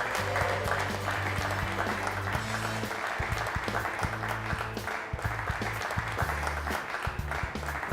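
Applause from the gathered audience greeting the tournament champion, a steady dense patter of clapping, over background music with a steady bass line.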